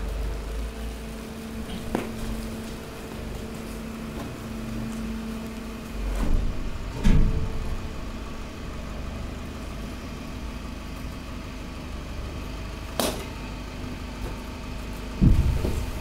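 Hydraulic power unit of a stationary waste compactor running with a steady hum. A few sharp knocks and thumps sound over it, the loudest about seven seconds in and near the end.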